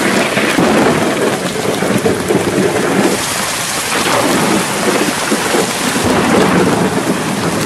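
Heavy rain falling with thunder rumbling: a loud, steady rush that swells and eases every second or two.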